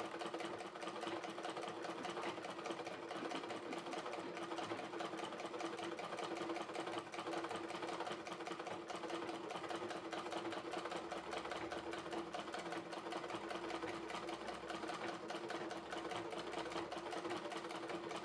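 Antique Dürkopp treadle sewing machine stitching steadily: a rapid, even clatter of the needle mechanism with a steady hum underneath.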